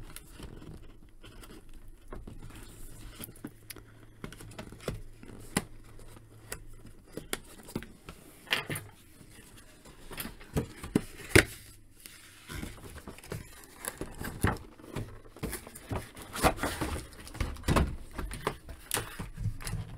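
Cardboard box being worked open by hand: scattered clicks, scrapes and crinkles of its flaps and tabs, busier in the second half, with one sharp loud click a little past halfway.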